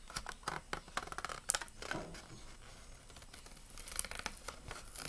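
Stiff plastic blister pack on a cardboard toy-car card being pried and picked at by fingers: irregular clicks, crackles and scratches of plastic and card.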